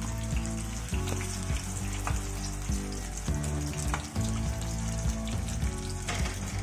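Battered rohu fish pakoras deep-frying in hot oil in a kadai: a steady sizzle and bubbling, with a few light taps and scrapes of a metal spatula as the pieces are turned.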